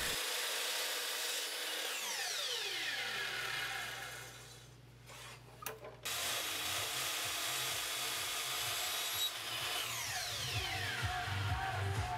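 Miter saw trimming the end of a curved wooden molding in small cuts. The blade winds down with a falling whine, goes quiet, starts up again about halfway through and winds down once more near the end.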